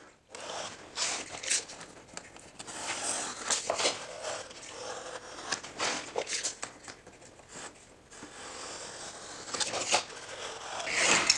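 Knife blade scoring the paper backing of 5/8-inch sheetrock in a series of short scratchy strokes, the lines scored twice so the gypsum will snap cleanly. A longer stroke comes near the end.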